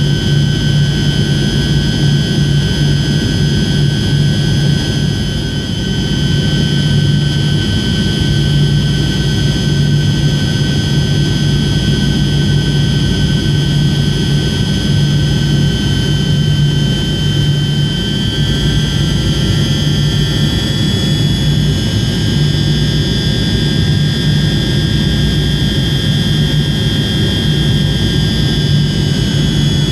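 Cabin noise of a Tupolev Tu-154M on approach, heard beside its rear-mounted Soloviev D-30KU-154 turbofans: a steady low drone with a high whine on top. The whine shifts slightly in pitch about two-thirds of the way through.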